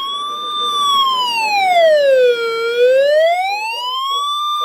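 Electronic wailing siren tone sounding for a severe thunderstorm warning, its pitch rising and falling smoothly about once every four seconds.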